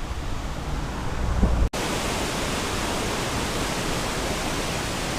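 Wind buffeting the microphone for the first second and a half, then, after an abrupt cut, the steady rushing of a turbulent mountain river.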